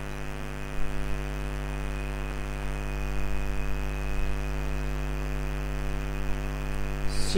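Steady electrical mains hum: a constant low drone with a ladder of even overtones.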